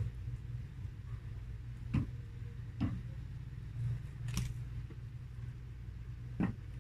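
About four separate clicks and soft knocks over a steady low hum, from food being handled in an aluminium pot at a table. The loudest, lowest knock comes near the end, around when a hotdog drops onto the tabletop.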